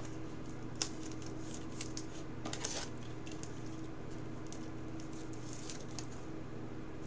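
Light clicks and rustles of a trading card and a rigid plastic top loader being handled as the card is slipped into it, over a steady low hum.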